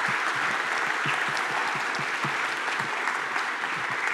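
Audience applauding at a steady level, a dense mass of many people's claps.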